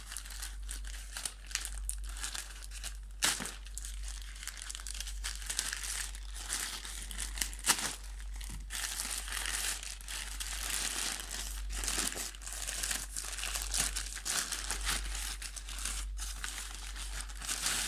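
Plastic courier mailer bag and its inner wrapping crinkling and rustling as they are pulled open by hand, with sharp plastic snaps now and then, the loudest about three seconds and nearly eight seconds in.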